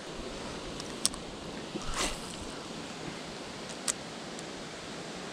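Steady rush of flowing water, with a few short sharp clicks and a brief swish about two seconds in as a spinning rod and reel is cast.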